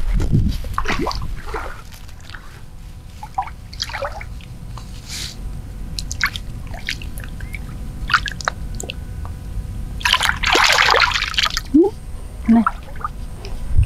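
Pond water splashing and sloshing around the legs of a person wading in the shallows, with scattered small splashes and trickles, and a longer, louder splash about ten seconds in.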